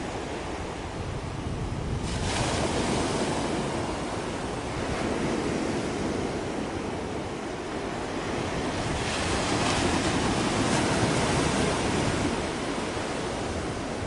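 Wind buffeting the microphone over the steady wash of the sea, swelling about two seconds in and again around nine seconds.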